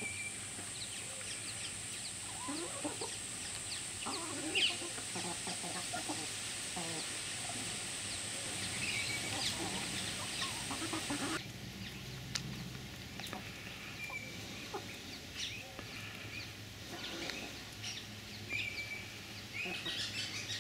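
Domestic hens clucking softly and intermittently as they feed together. A steady high-pitched whine sits over them and cuts off suddenly about halfway through.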